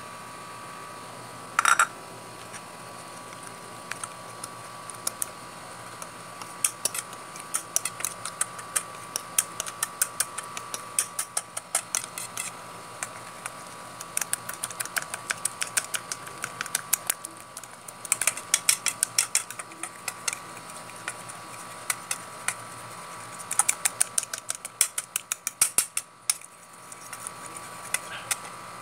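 A fork beating egg and flour into tempura batter in a bowl, the tines clicking rapidly against the bowl in runs of quick strokes with short pauses. A steady hum runs underneath.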